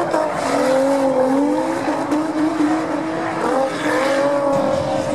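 Drift cars, among them a Nissan Skyline and a Nissan 350Z, sliding sideways in tandem: engines held at high revs with a wavering note that dips and rises, over the hiss and squeal of tyres spinning into smoke.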